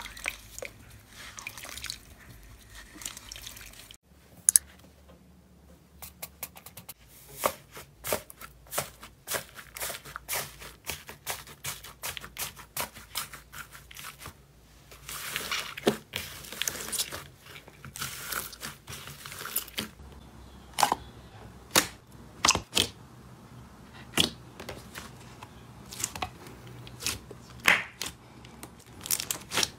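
Hands crushing glitter-coated floral foam blocks, then pressing and squeezing slime: a run of crisp crackles, crunches and small pops, denser in a few stretches.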